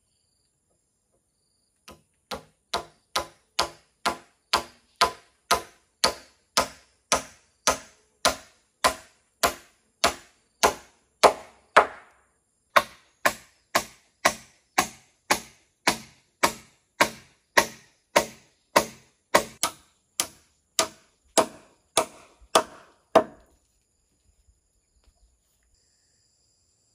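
Steady chopping blows of a blade into a wooden pole, about one and a half a second, with a short pause near the middle; they stop a few seconds before the end.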